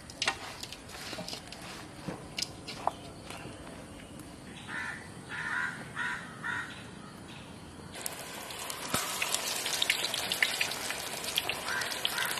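A crow cawing four times in quick succession, harsh and fairly loud. From about two-thirds of the way through, a dense crackling hiss full of small clicks takes over and grows louder.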